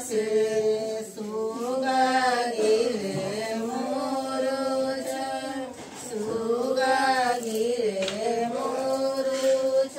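A voice singing a slow devotional song in long, held notes that bend and waver, with short breaths between phrases.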